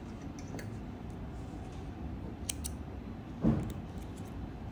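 Faint handling sounds of small spring-handled thread snips being picked up to cut a crochet yarn tail: a pair of light clicks about halfway through, then a soft knock a second later, the loudest sound, and a few faint ticks.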